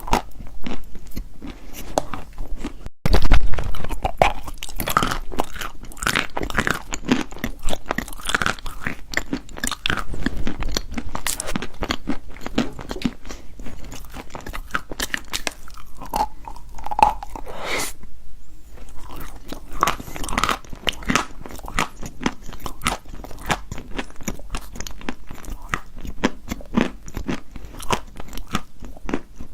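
Wet chalk being bitten and chewed: steady, dense crunching, loudest with a hard bite about three seconds in, and a short pause a little past the middle.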